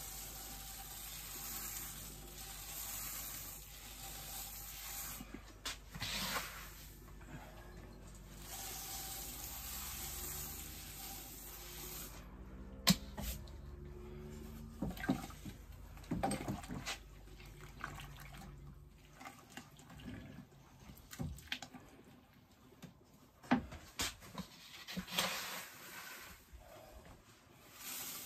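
Crushed malt grain poured from a plastic scoop into the mash water of an electric brewing kettle while doughing in: a steady pouring hiss, with the scoop scraping and knocking as it is refilled from the grain bucket. A low hum under it stops about two-thirds of the way through.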